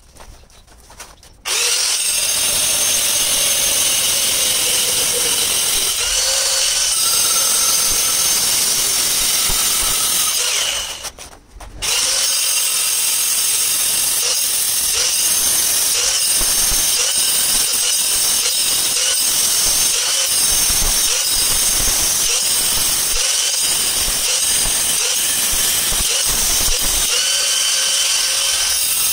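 Handheld angle grinder with a cutting disc slicing through black stone tile, starting suddenly about a second and a half in and running as a loud, steady high whine. It stops briefly near the middle, then restarts and keeps cutting.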